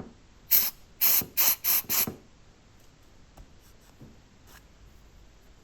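Aerosol can of electrical contact cleaner sprayed in five short hissing bursts over about a second and a half, then a few faint clicks. It is being used to clean the dirty electrical contacts of a heater blend-door actuator.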